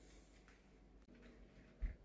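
Quiet handling sounds from working on a cuckoo clock's chain and movement: a few faint clicks and rustles, then one short low thump shortly before the end.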